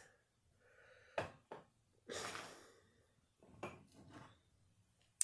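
Carbonated energy drink poured from a can over ice in a cup: a couple of sharp clinks, then a hiss of the pour about two seconds in, and a few smaller knocks and a last clink near the end.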